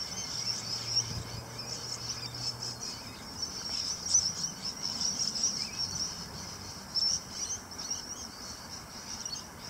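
Insects chirping steadily at a high pitch, with a faint low hum in the first few seconds.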